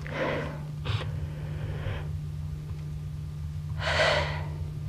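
A man's breathy, stifled laughter: short puffs of breath through a gloved hand over his mouth, the loudest about four seconds in. A steady low hum runs underneath.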